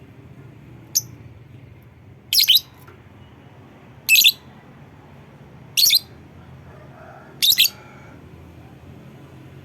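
A lovebird giving five short, sharp, high-pitched calls, about one every one and a half to two seconds, over a faint low hum.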